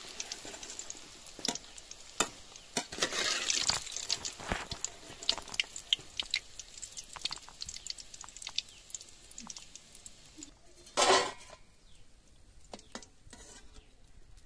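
Hot frying oil crackling and dripping as fried rohu fish pieces drain on a slotted spoon over the wok, with many sharp pops. About eleven seconds in comes a short loud noise, after which the crackling is gone.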